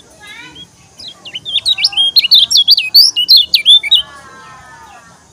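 A caged kecial kuning (yellow white-eye) singing a loud, fast burst of quick up-and-down whistled notes, starting about a second in and stopping suddenly about three seconds later.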